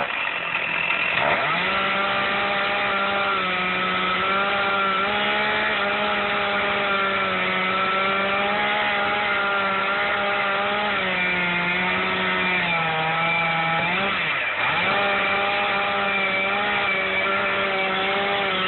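Stihl MS460 two-stroke chainsaw running at full throttle through the trunk of a standing dead oak in the felling cut behind the notch. Its pitch holds steady but sags lower under load for a couple of seconds past the middle, and it drops sharply and recovers twice, once soon after the start and once about two-thirds of the way in.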